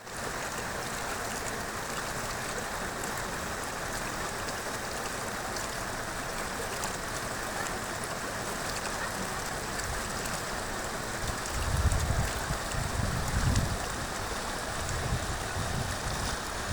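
A river rushing steadily. From about two-thirds of the way through, gusts of wind buffet the microphone with low rumbles.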